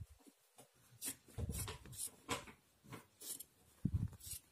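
Scissors cutting through fabric: a string of short, irregular snips, faint and uneven in spacing.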